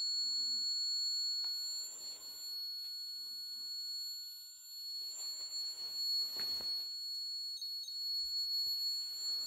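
Ghost box (spirit box) scanning radio frequencies: a steady high-pitched electronic whine with short, faint bursts of static and garbled fragments every second or two.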